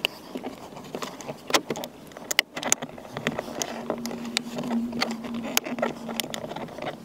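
Irregular sharp clicks and knocks of hands working on a car's door trim, with a steady low hum for about three seconds in the middle.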